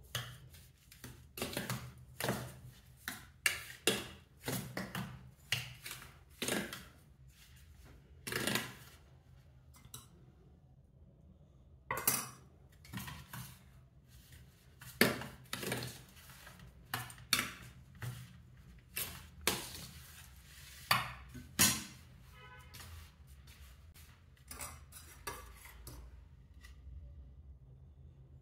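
Stainless steel bowl and spoon clinking and scraping as roasted millet flour is mixed in it, in irregular knocks one or two a second that thin out near the end.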